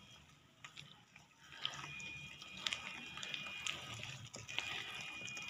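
A hand beating thick moong and urad dal batter in a bowl: wet squelching and slapping with soft clicks, growing louder about a second and a half in.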